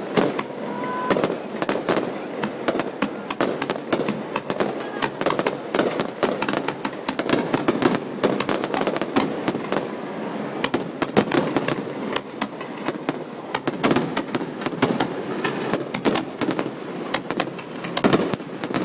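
Fireworks display: a dense, unbroken run of overlapping bangs and crackling.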